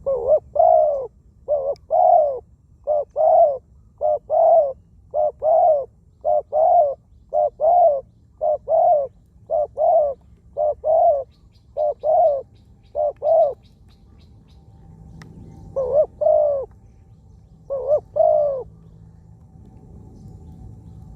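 Spotted dove cooing: a steady run of short, repeated coo phrases about one every 1.3 seconds. After a pause there are two more coos near the end.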